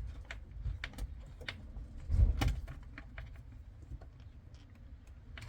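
Light scattered clicks and taps of hands handling small parts and fasteners, with a louder knock a little over two seconds in.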